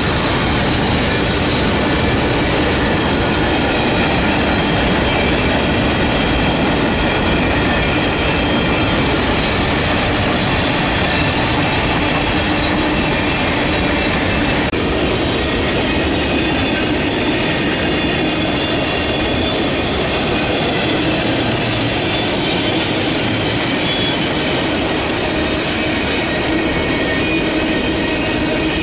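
Freight train cars rolling past at trackside: a loud, steady rumble of wheels on rail, with steel wheels squealing in several thin high tones throughout.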